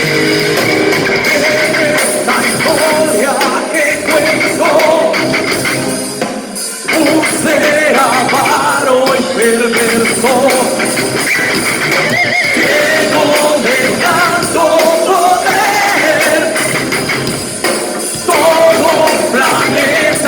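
Rock band playing live: a voice singing a melody over guitars.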